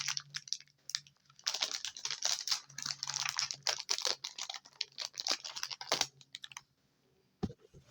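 Close handling noise: rapid plastic clicking and rustling, which stops about six seconds in, followed by a couple of short knocks near the end.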